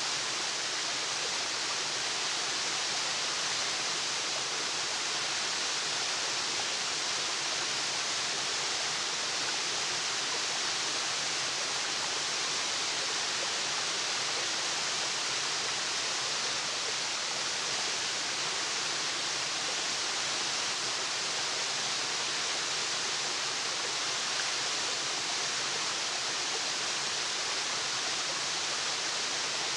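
Waterfall: a steady, unbroken rush of falling water, even in level throughout and bright rather than deep.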